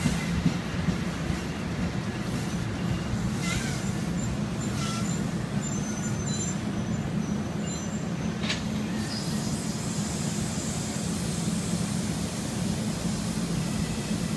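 NJ Transit MultiLevel commuter train coming to a stop and then standing at the platform, with a steady low hum throughout. A few short high squeals in the first half are typical of brakes as it halts.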